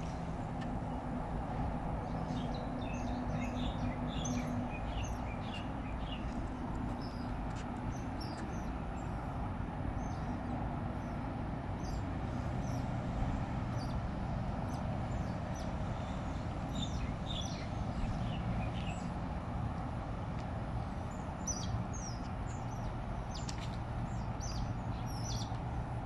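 Steady distant traffic drone with a low hum, and short high chirps scattered throughout, in clusters.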